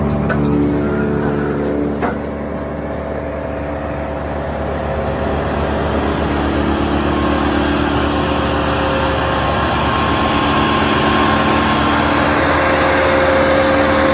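Bandit 1290 brush chipper running steadily, a constant engine-and-machine drone. There are a few light clicks in the first two seconds, and the sound grows gradually louder after that.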